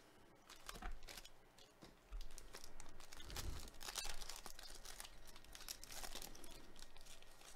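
Foil wrappers of 2021 Panini Chronicles Baseball card packs being torn open and crinkled by gloved hands, a crackly rustle that starts softly and gets louder about two seconds in.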